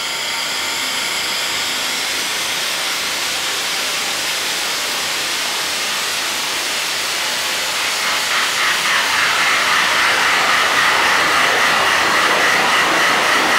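Make Noise Strega synthesizer sounding through a feedback loop of echo modules: a dense, steady, hissing wash of delayed and re-fed sound. About eight seconds in it grows a little louder and a brighter, higher band comes forward.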